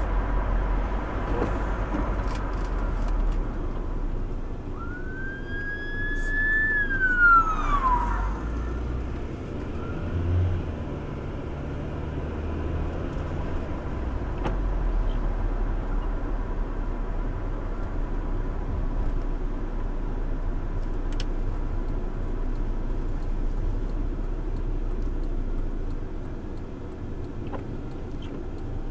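Steady road and engine noise heard inside a moving car. About five seconds in, a sheriff's patrol car siren gives one short wail, rising a little in pitch and then falling quickly.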